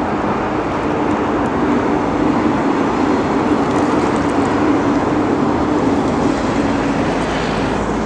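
Loud, steady engine noise with a low droning hum that holds through, swelling and fading only slightly.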